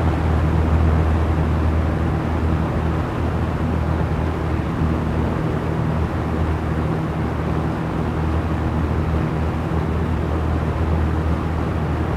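Small electric fan running steadily: an even whoosh of moving air over a low motor hum.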